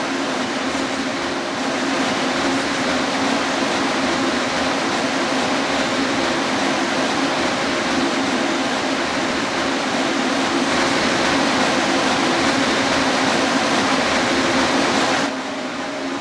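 Mexico City Metro Line 3 rubber-tyred train running along the line, heard from inside the car: a steady rolling rush with a low hum. It grows louder about a second and a half in and drops suddenly near the end.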